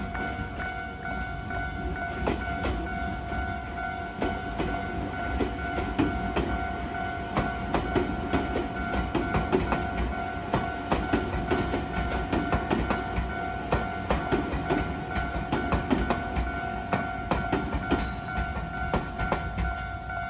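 Japanese level-crossing warning bell ringing steadily while a train passes over the crossing. About halfway through, the train's wheels clacking over the rail joints get louder and come thick and fast.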